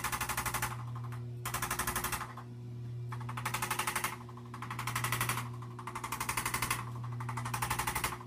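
Rapid, even pulsing at about a dozen beats a second, in stretches of about a second that shift in tone, over a steady low hum.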